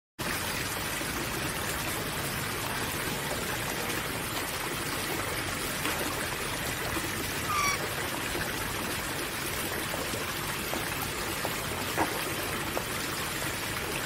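Steady, even hiss like trickling or running water, starting suddenly just after the start, with one short, high bird chirp a little past halfway and a single click near the end.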